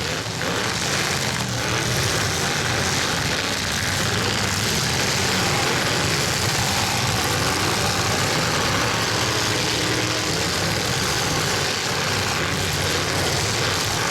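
Several demolition-derby trucks' engines running and revving together, a loud steady mass of engine noise with no single event standing out.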